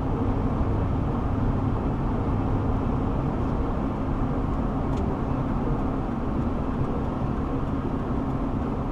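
Steady road noise of a car driving at speed, with tyre and engine noise heard from inside the car.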